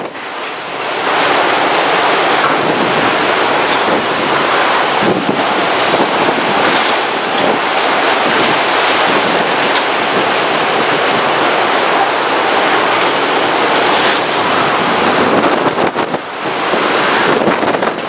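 Storm-force wind of Typhoon Jebi (Typhoon No. 21, 2018) blowing hard in gusts and buffeting the microphone. It eases briefly about a second in and again near the end.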